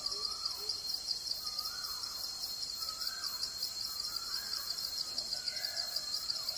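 Insect chorus trilling steadily in a fast pulsing rhythm, with a bird giving a short swooping call about once a second.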